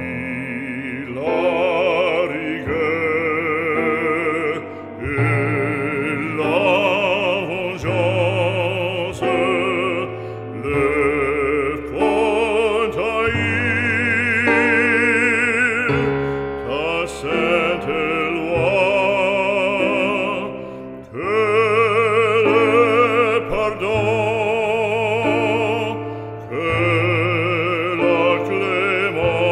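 Background music: an operatic voice singing long notes with wide vibrato over a sustained low accompaniment.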